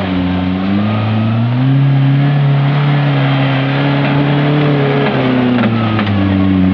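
Off-road vehicle's engine revving up under load about a second in, held at high revs for a few seconds, then easing back down near the end.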